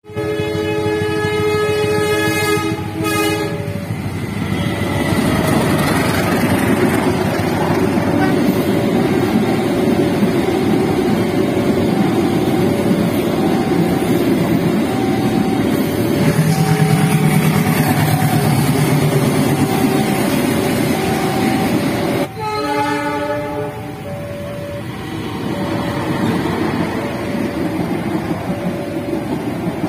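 Train horn sounding near the start and again about two-thirds of the way through, over the continuous rumble of trains passing a railway level crossing. The crossing's warning alarm rings throughout in a steady alternating two-tone pattern.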